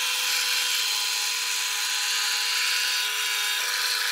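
Electric drill running steadily, its bit boring into a square butternut wood blank: a constant motor hum with the hiss of the wood being cut.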